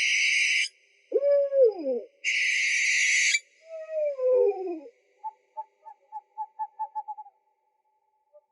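Owls calling: two loud, harsh screeches alternate with hooting calls that slide down in pitch, followed by a quickening run of short hoots.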